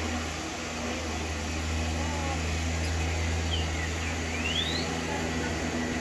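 A steady low hum over a constant rushing background, with a few faint, short, high rising chirps about three and a half to five seconds in.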